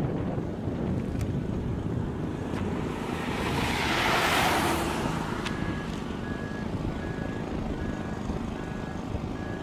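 Moving road vehicle: steady engine and road rumble with wind on the microphone, and a rush of noise that swells and fades about four seconds in. In the second half a faint high beep repeats about twice a second.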